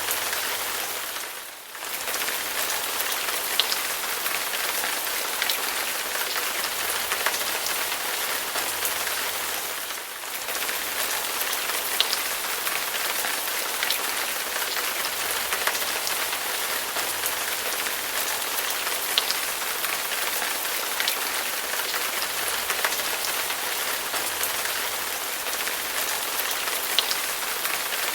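Steady rain falling, with individual drops ticking sharply here and there. The sound briefly dips twice, about a second and a half in and again about ten seconds in.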